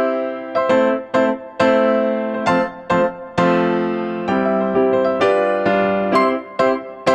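Background music: a light instrumental piece of struck keyboard-like notes that each start crisply and fade, in a quick, lilting rhythm.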